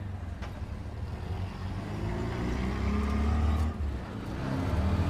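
Tuk tuk (auto-rickshaw) engine running under the passenger, pulling up through the revs, dipping briefly about four seconds in, then picking up again.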